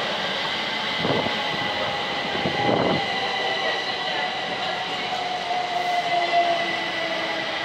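Class 379 Electrostar electric multiple unit running past the platform: steady wheel-on-rail rumble with a high whine and a lower tone that falls slowly in pitch. There are two short, louder rumbles about one and three seconds in.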